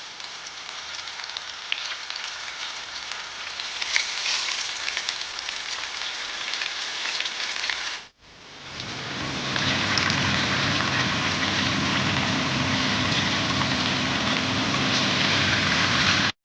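Tuna steaks frying in oil in a pan, sizzling steadily with scattered crackles and pops. After a cut about halfway through the sizzle is louder, with a low hum underneath.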